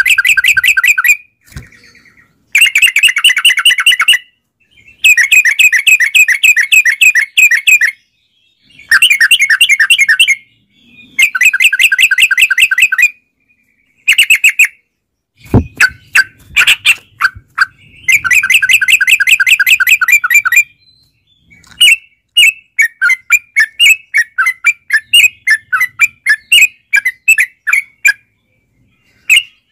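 Yellow-vented bulbul singing long, rapid rolling phrases of quickly repeated notes, each about two seconds long with short pauses between. About two-thirds of the way through, the song turns into a run of separate quick chirps. A single thump is heard about halfway through.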